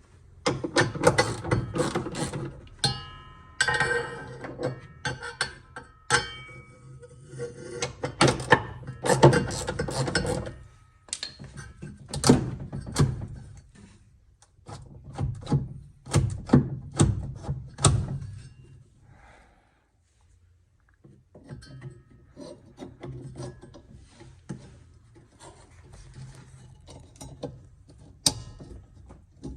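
Hands and tools working on a washing machine during a drive-belt repair: irregular knocks, clicks and scraping of parts being handled, busy for the first eighteen seconds or so, then fainter and sparser after a brief lull.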